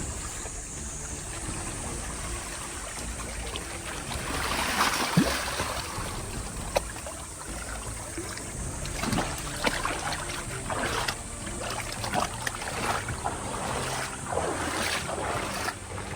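Water rushing and splashing in three swells that rise and fall, over a steady low rumble of wind on the microphone.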